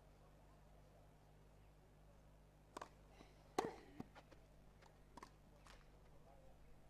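Tennis rally on a grass court: a quick run of sharp racket-on-ball hits and ball bounces, starting a little under three seconds in and lasting about three seconds, the loudest hit about half a second after the first.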